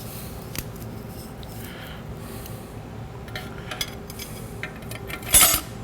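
Steel clutch plates of a 4L60E transmission's low/reverse clutch pack clinking against each other and the case as they are stacked in, with several light clicks and one louder metallic clank with a short ring near the end.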